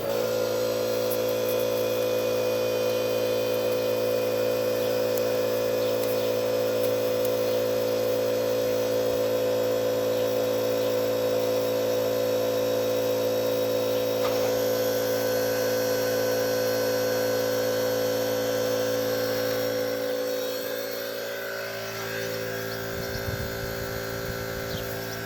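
A steady hum with several fixed pitches starts abruptly, holds level, and eases slightly about twenty seconds in.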